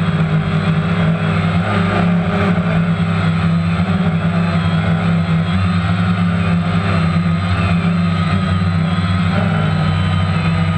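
Multirotor drone's electric motors and propellers humming steadily as it hovers low, heard from the camera mounted on it. A deep drone is overlaid with a higher, slightly wavering whine.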